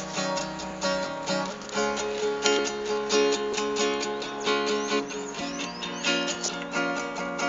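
Acoustic guitar strummed in a steady rhythm, playing chords as a song's intro before the singing comes in.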